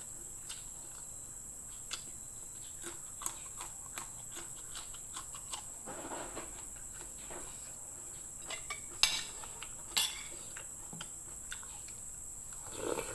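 Eating sounds: chewing with many small clicks and clinks of cutlery and a plate, and two sharper clinks about nine and ten seconds in. A steady high chirring of insects runs underneath.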